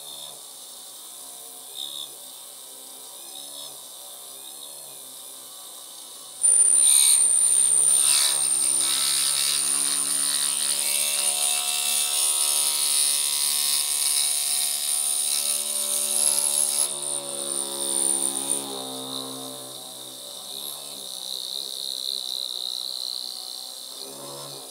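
A high-speed milling spindle mounted on a benchtop lathe starts suddenly about six seconds in, with a steady high whine, as its drill bit cuts a cross hole through a metal part. The whine fades out about two-thirds of the way through, leaving quieter cutting noise.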